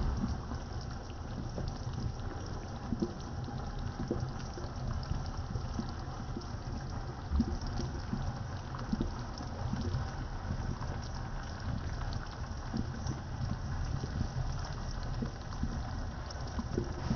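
Braising liquid of 7 Up bubbling around a whole chicken in a pot, with many small irregular pops over a low steady rumble.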